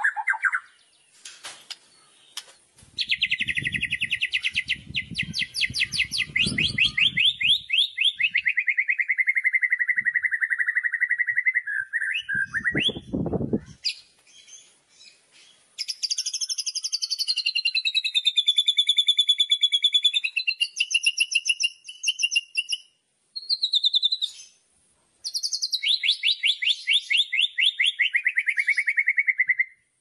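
Songbird singing a loud 'kretekan' song: long, rapid rattling trills that slide down in pitch, between clear whistled phrases. A low rumble sits under the first trill.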